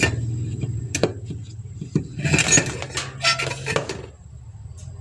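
A soldering iron set down into its sheet-metal stand with a click, then light metallic clinking and rattling a little over two seconds in, lasting under two seconds. A low rumble underneath fades out near the end.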